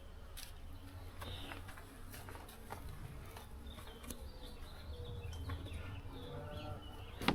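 Quiet pasture ambience: faint bird calls and scattered small clicks and rustles over a low rumble, with a sharp click near the end.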